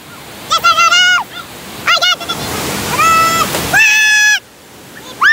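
Men shouting and whooping in loud, high-pitched yells, several in quick succession, over the steady rush of whitewater rapids; the water noise swells in the middle between the shouts.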